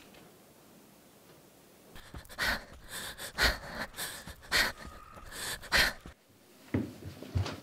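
Heavy panting of a person running hard: loud breaths about twice a second, starting about two seconds in and breaking off near six seconds, with a couple more near the end.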